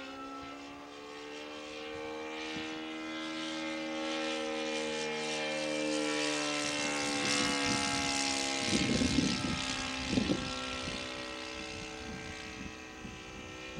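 Fuel-burning engine and propeller of a radio-controlled PC-21 scale model plane droning as it flies past: it grows louder toward the middle, its pitch rising slightly and then falling away as it fades. Two short bursts of noise come about two-thirds of the way through.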